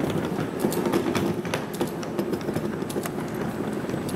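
Someone walking across a hard tiled floor in a large hall: a steady low rumble with quick, irregular clicks several times a second.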